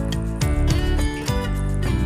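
Background pop music with a steady beat, in an instrumental gap between sung lines.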